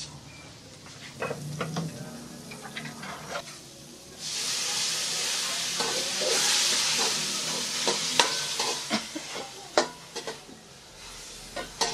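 Vegetables frying in a metal wok-style pan on a gas stove, a ladle scraping and knocking against the pan. About four seconds in, a loud sizzling hiss of steam sets in as water goes into the hot pan, easing off toward the end, with more ladle knocks through it.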